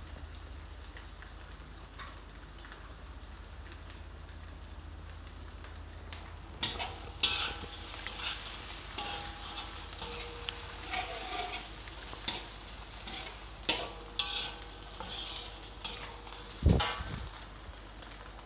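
Sliced fish balls sizzling in hot oil in a metal wok, with a spatula scraping and knocking against the pan as they are stirred, mostly from about six seconds in. One louder knock comes near the end.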